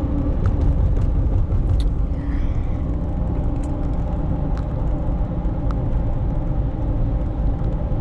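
A car driving along a road, heard from inside the cabin: a steady drone of engine and road noise, with a few light clicks now and then.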